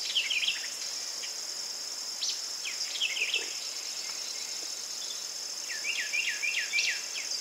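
Steady, high-pitched chorus of insects, with a bird's short chirping calls breaking in a few times and a quick run of repeated notes near the end.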